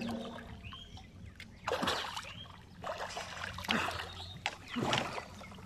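Water splashing and sloshing in about five irregular bursts as a person swims through a canal beside a wooden boat.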